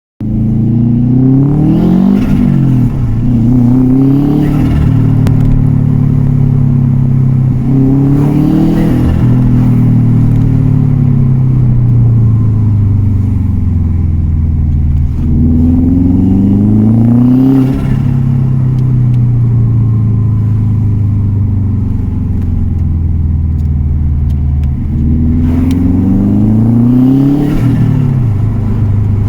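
Subaru WRX turbocharged engine revving up and easing off about four times. The blow-off valve is blocked off, so each lift-off brings turbo flutter: compressor surge as boost pushes back through the turbo.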